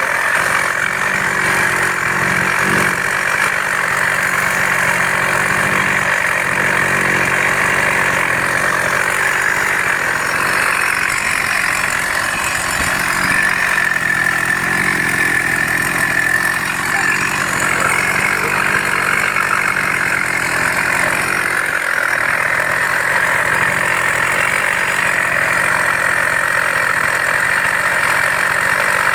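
A two-stroke model 5200 chainsaw engine running steadily and loudly. The saw is hard to start and runs louder than it should, a fault the owner has not yet traced.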